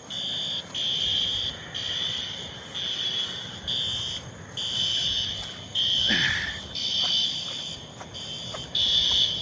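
Fire alarm horns (System Sensor SpectrAlert Advance horn-strobes) sounding a high, harsh tone in repeated blasts about once a second. The blasts are of uneven length because several horns are out of step with one another, the sign of an unsynchronized alarm system.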